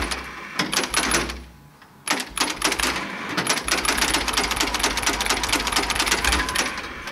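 Long-dormant Allis-Chalmers Model B tractor engine. It fades out about a second and a half in, then after a short lull clatters again with rapid metallic ticking and a low hum, and cuts off near the end.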